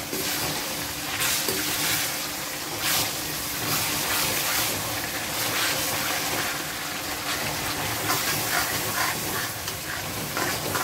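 Sliced onions and a wet red spice paste sizzling in hot oil in a metal kadai, with a metal spoon stirring and scraping against the pan in repeated strokes.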